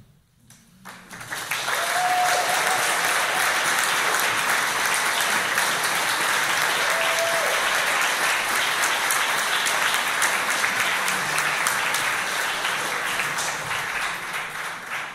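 Audience applauding: after a brief hush, the clapping builds quickly about a second in, holds steady, and begins to thin out near the end.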